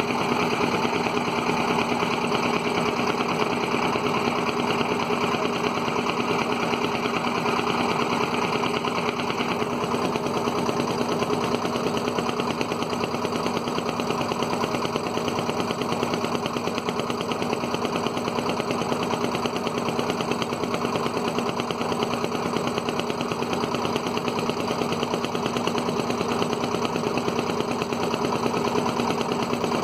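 Wooden river boat's engine running steadily, with a rapid, even knocking beat and no change in speed.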